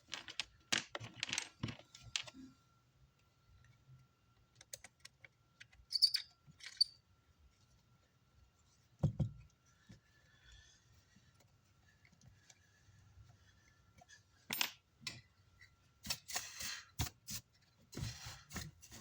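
Scattered small metal clicks and clinks of wires, terminals and tools being handled on a workbench while power leads are connected to the amplifier, with a soft thump about nine seconds in and a busier run of clatter near the end.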